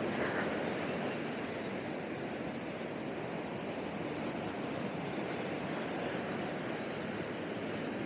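Steady ocean surf washing onto the beach, mixed with wind rumbling on the microphone.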